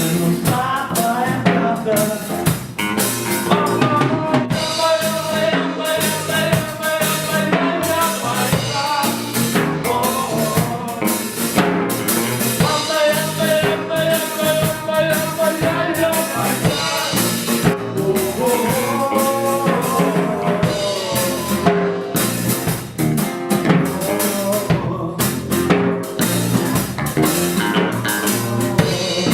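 A live band plays an instrumental passage of a reggae-rock song. A drum kit with rimshots, snare and bass drum keeps a steady beat under a wavering melodic lead line.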